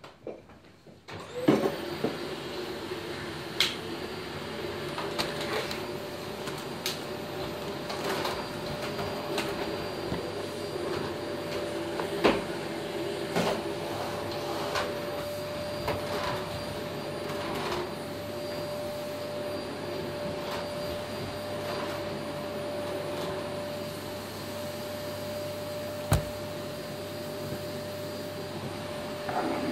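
An electric motor switches on about a second in and runs steadily with a constant whine, with scattered knocks and bumps over it.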